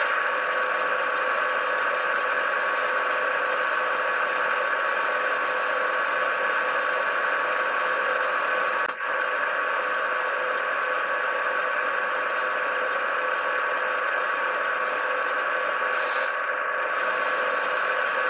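Econami DCC sound decoder in an HO scale box cab electric switcher locomotive playing a steady idling hum with hiss through the model's speaker. A brief higher hiss comes near the end.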